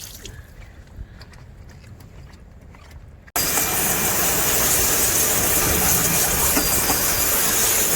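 A few faint clicks and taps, then an abrupt cut to a loud, steady rushing hiss of water spraying, as when parts of a disassembled drum washing machine are cleaned.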